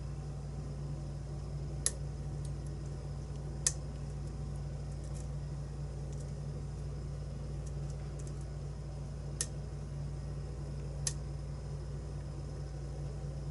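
Lock picks working inside a challenge lock's keyway: a few sharp metal clicks a couple of seconds apart, with fainter ticks between, over a steady low hum.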